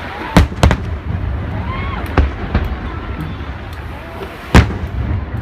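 Aerial firework shells bursting in a series of sharp booms over a steady low rumble, the loudest burst about four and a half seconds in.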